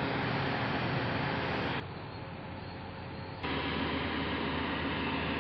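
Sany SR235 rotary drilling rig's diesel engine running steadily, with a low hum under a broad noise; the sound drops quieter for about a second and a half near the middle, then returns.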